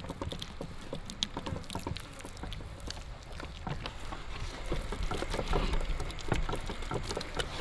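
Hands smearing and patting thick, wet masala paste over a whole large trevally on a metal platter: soft, irregular wet pats and small clicks.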